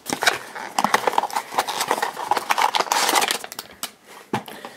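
A small cardboard blind box being opened and a foil blind bag pulled out of it: quick clicks, rustling and foil crinkling, busy for the first three seconds or so, then quieter with a single tap near the end.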